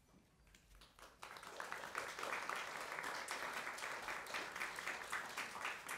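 Audience applauding. The clapping starts about a second in and thins out near the end.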